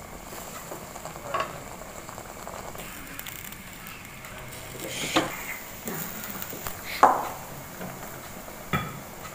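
A wooden spatula stirring noodles in a wok of simmering broth over a steady hiss. The spatula knocks against the pan a few times, most loudly about seven seconds in.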